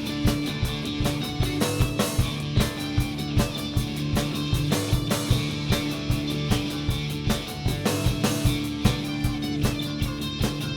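Live rock band playing an instrumental passage: drum kit keeping a steady beat under sustained guitar and bass, with no vocals.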